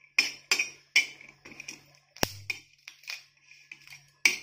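Metal spatula scraping and tapping on a flat griddle (tawa) in quick, irregular strokes, about a dozen, as green chillies are turned while they dry-roast. A sharp click stands out a little past two seconds in.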